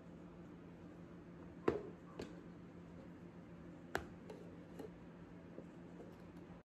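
Quiet room with a steady low hum, broken by a few sharp light clicks, the loudest about one and a half seconds in and again about four seconds in, with fainter ticks between.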